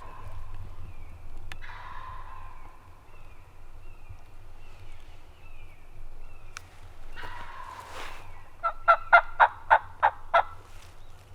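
Wild turkey gobbler gobbling several times, each gobble a short rattling burst. Near the end comes a run of about eight evenly spaced, loud turkey yelps.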